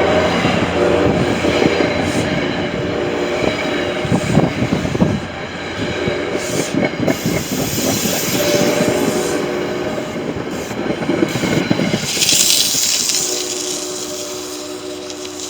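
NJ Transit F40PH-2CAT diesel locomotive and its train passing close by, the wheels clattering over rail joints. A multi-note horn chord sounds at the start and again near the end.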